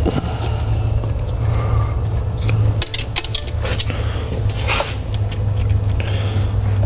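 Light metallic clicks and scrapes of hand tools and small bolts being run in on a transmission's internal filter, a cluster of them about three seconds in and another near five seconds, over a steady low hum.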